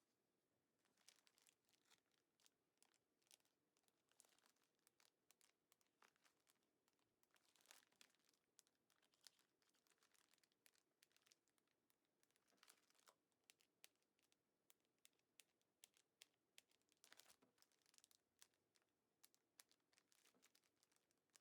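Faint crinkling and rustling of plastic bags being handled, in many short irregular crackles.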